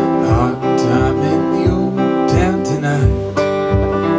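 Acoustic guitar music, an instrumental break in a folk-blues song, with a steady bass beat about twice a second under the melody.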